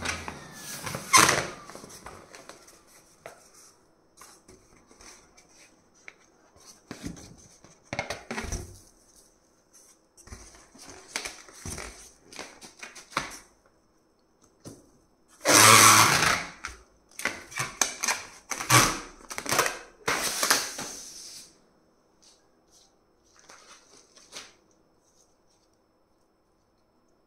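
A long latex balloon being handled and bent: scattered rubbing, squeaking and rustling sounds in short bursts. The loudest burst comes a little past halfway, and it goes quiet near the end.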